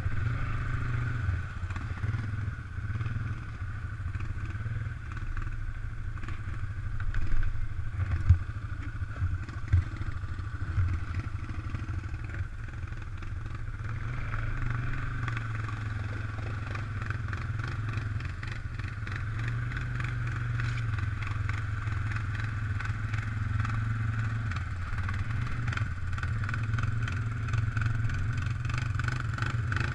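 Suzuki ATV engine running steadily, heard from on board as the quad drives through water on the trail. A few sharp knocks stand out about a quarter to a third of the way in.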